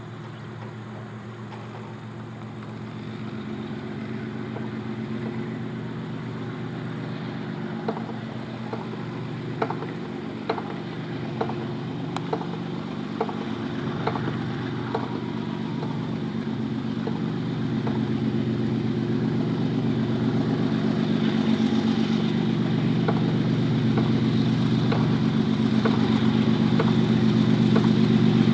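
Twin WDG-4G diesel locomotives, GE Evolution-series engines, running with a steady low drone that grows steadily louder, with a run of sharp clacks about once a second in the middle.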